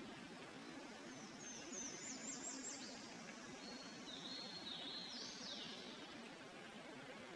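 A small songbird singing in woodland: a quick run of high notes about a second in, then a second high phrase a few seconds later, over a faint steady hiss.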